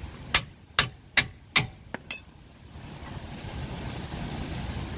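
About five to six hammer taps on the steel parts of a Nissan Juke's front wishbone and ball joint, roughly 0.4 s apart, each with a short metallic ring. The taps come in the first two seconds and then stop.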